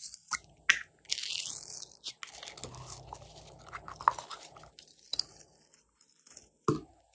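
A clear plastic bottle of blue glitter slime being handled and squeezed: the plastic clicks and crinkles, and the slime squelches and crackles as it is pushed out, with many sharp clicks throughout.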